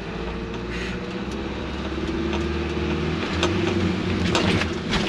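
Isuzu NPS 4x4 truck's diesel engine running hard and growing louder, heard inside the cab as it is driven fast over a rough sandy track. Sharp knocks and rattles come in over the last second or so.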